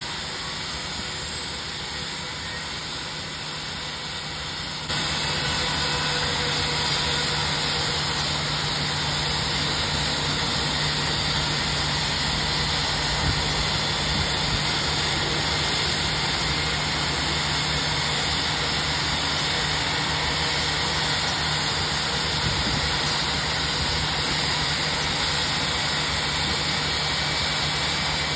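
IAE V2500 turbofan engine of an Airbus A320 during its start sequence: a steady rushing noise with a low hum, a faint rising whine in the first few seconds, growing louder about five seconds in and then running steadily.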